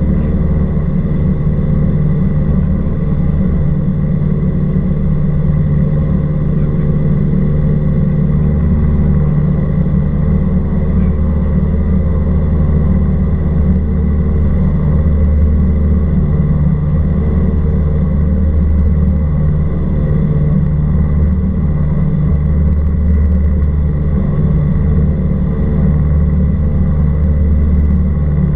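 Cessna 172R Skyhawk's four-cylinder Lycoming piston engine and propeller running steadily in flight, a constant low drone that holds one pitch throughout.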